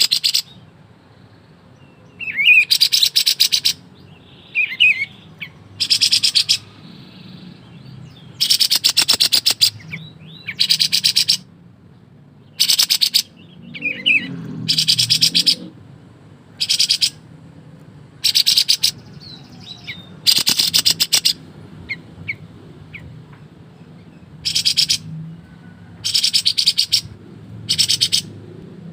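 Kapas tembak songbird singing in rapid rattling bursts ('ngebren'), each a fast, dense run of notes lasting up to a second and repeated every one to two seconds. A few soft whistled notes fall between the bursts.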